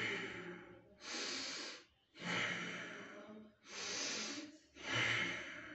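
A man breathing deeply and deliberately while lying face-down, doing prone breathing exercises. Each breath in and each breath out is a rush of air about a second long, with brief pauses between them.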